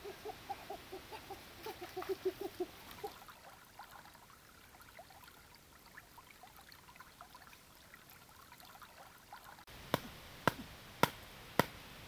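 Shallow creek water trickling faintly, with a run of short, quick pitched calls over the first three seconds. Near the end it changes abruptly to sharp knocks at a steady pace of about two a second.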